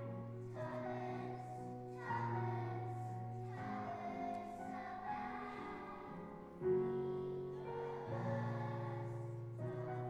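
Children's choir singing a song over an instrumental accompaniment that holds low notes beneath the voices, with a louder entry about two-thirds of the way through.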